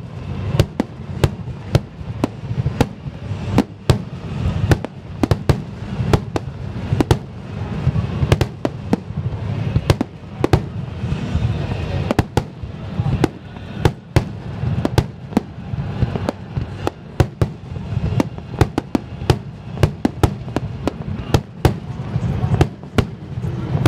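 Fireworks going off in quick succession: sharp bangs and cracks about two or three a second over a steady low rumble.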